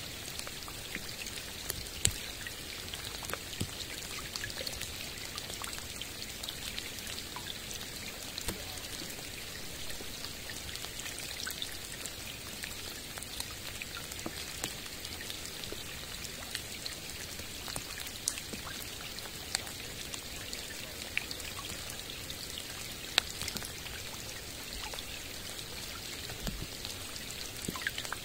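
Steady rain falling on a lake and the forest around it: an even hiss full of separate drop hits, a few nearby drops louder than the rest.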